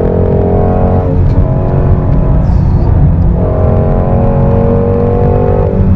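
Ford Mustang Shelby GT350R's 5.2-litre flat-plane-crank V8 running hard at speed, heard from inside the cabin. The engine note falls away about a second in, then comes back strongly about three and a half seconds in and holds.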